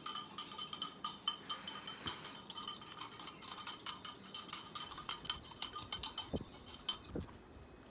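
A metal wire whisk beating rapidly against a ceramic bowl, whipping instant coffee, sugar and hot water by hand into dalgona froth: fast, ringing clinks many times a second that thin out and stop about seven seconds in.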